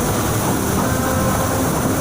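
Transjakarta bus driving in heavy rain: a steady, loud mix of engine and rain-and-tyre hiss.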